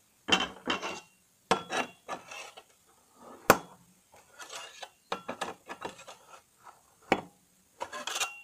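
Stainless steel crinkle cutter slicing through a small loaf of soap in a steel slicing guide: a series of short scraping strokes as the blade rubs along the metal guide, with two sharp knocks of metal on metal.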